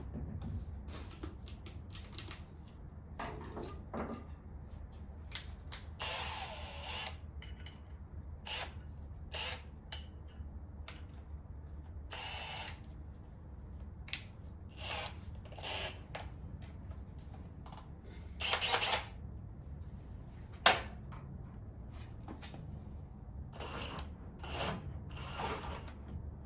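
Handheld power drill with a half-inch bit boring through the body metal of a 1957 Chevrolet Bel Air, run in several short bursts with pauses between, with the bit guided through a bushing for a spotlight mounting hole.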